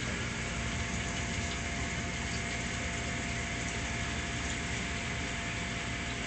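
Steady hum and water rush from a reef aquarium's pumps and circulation, with a thin steady whine that comes in just after the start.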